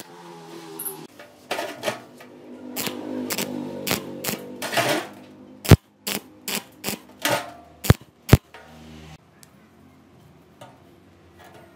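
Arc welding rod tack-welding expanded steel mesh to a steel band: short crackling, sizzling bursts of the arc and several sharp pops, falling quiet for the last few seconds.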